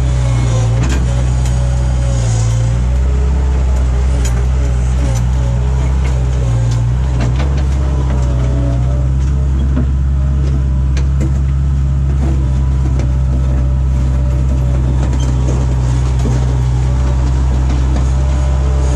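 Skid steer loader's engine running steadily under load while it works a bucket, with a faint wavering whine over a deep steady hum and scattered short knocks.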